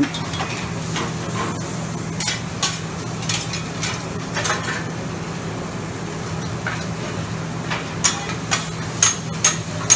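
Shrimp, onions and rice noodles sizzling as they are stir-fried on a flat-top griddle. Metal spatulas scrape and clack against the steel, with sharper clacks in the last couple of seconds. A steady low hum runs underneath.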